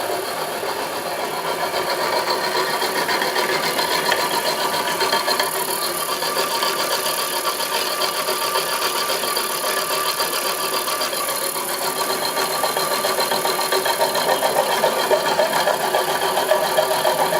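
A homemade milling machine running steadily, its motor and drive giving a constant machine whine with a fast fine rattle, growing slightly louder in the second half.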